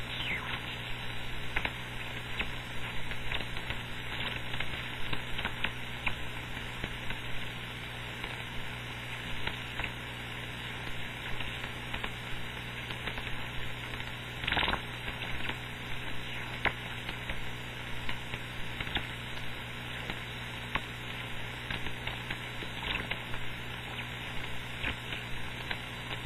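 Upper-sideband receiver on the 11-metre band passing open-channel band noise: steady hiss with scattered static crackles, one louder crack about halfway through, and a steady low hum. No station is transmitting, and the channel is waiting for the reply.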